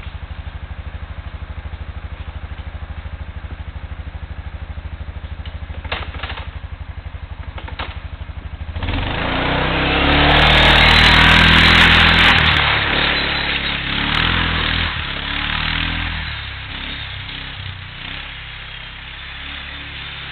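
Kawasaki Prairie 360 ATV's single-cylinder four-stroke engine idling with a steady low putter, then about nine seconds in it revs hard and pulls away, loudest a couple of seconds later, its note rising and falling as it drives through the mud.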